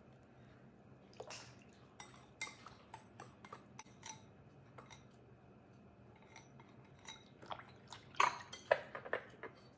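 Light clinks and taps of a wire whisk against a glass mixing bowl, and small ceramic bowls knocking as they are handled and set down on a granite counter; a quick run of louder clinks comes near the end.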